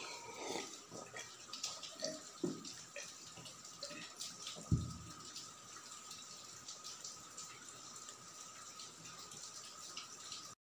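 Gulps of water drunk from a glass, then wet lip smacks and small clicks as fingers pick crumbs off a steel plate and are licked. A loud low thump a little under five seconds in, as the glass is set down on the table.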